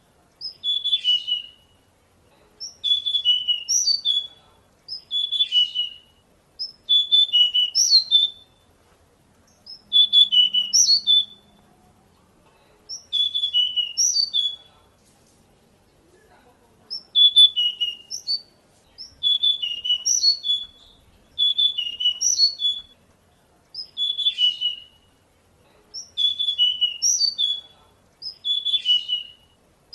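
Male pied bushchat singing, repeating the same short, quick warbling phrase over and over, about one phrase every two seconds with a brief pause between each.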